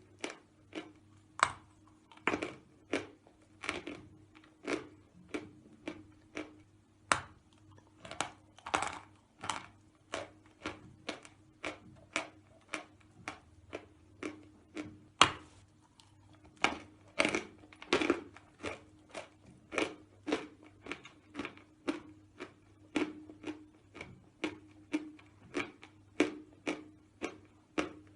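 Dry, powdery natural edible chalk being bitten and chewed close to the microphone: a run of short, sharp crunches, about two a second, over a faint steady low hum.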